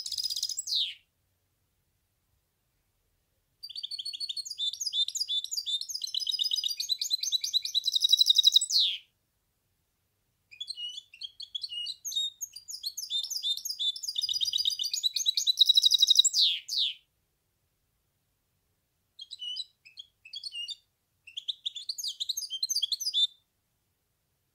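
Goldfinch hybrid (mule) singing: long phrases of rapid twittering trills several seconds each, separated by pauses, the longer phrases ending in a quick falling note, with shorter broken fragments near the end.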